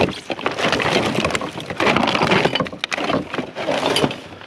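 Clatter of junk being sorted through by hand: hard objects knocking, scraping and rattling against each other in quick, irregular knocks.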